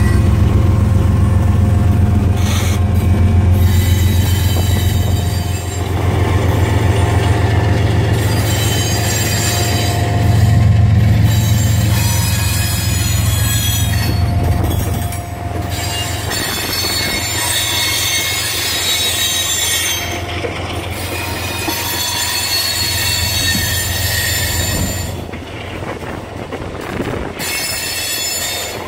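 A diesel-hauled freight train passing close by. The locomotives' engines drone loudly at first, easing off about halfway through as the freight cars roll past. High-pitched wheel squeal rises and falls through most of it, and the sound gets quieter near the end.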